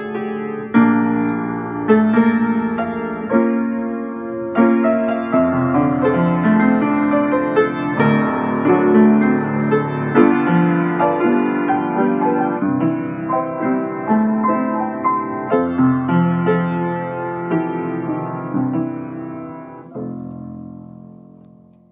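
Solo piano playing chords under a melody, the notes struck and left to ring; the music fades away near the end.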